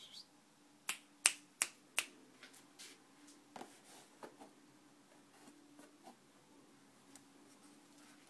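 Four sharp finger snaps in quick succession, about a third of a second apart, followed by softer scattered clicks and taps.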